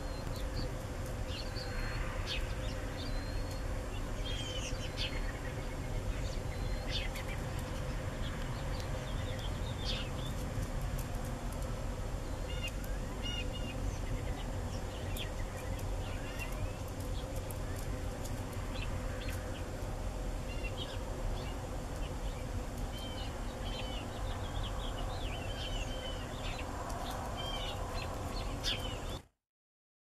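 A flock of small birds chirping and calling, many short high notes scattered throughout, over a steady low rumble and a faint steady hum. The sound cuts off suddenly shortly before the end.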